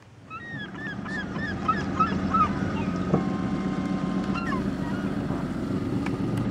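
A flock of gulls calling, many short yelping calls overlapping, with one longer held call near the middle, over the steady low hum of a boat's outboard motor running.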